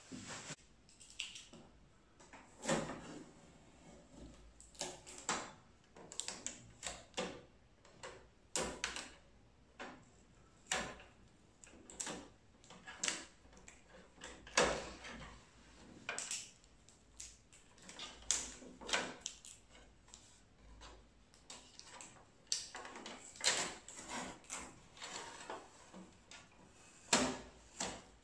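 Short, irregular rustles, clicks and knocks of hands unpacking a new Epson EcoTank L3156 printer: blue packing tape being peeled off and the printer's plastic output tray and covers sliding and clicking.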